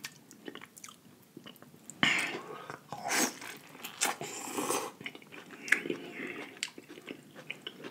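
A person biting into and chewing a sauce-covered boiled corn on the cob: several sharp bites and chews starting about two seconds in, tapering into quieter chewing.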